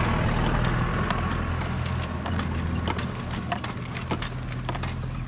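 An old wooden box bellows is worked to fan the fire under a pressure popcorn machine, giving irregular wooden clacks and knocks over a steady low hum.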